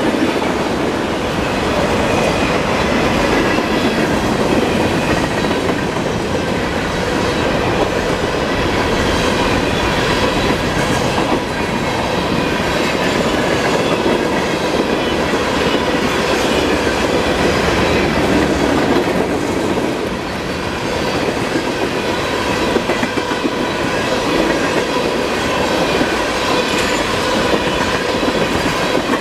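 CSX manifest freight train's tank cars and covered hoppers rolling past at speed: a loud, steady rumble of wheels clicking over the rail joints, with a steady high-pitched ring over it.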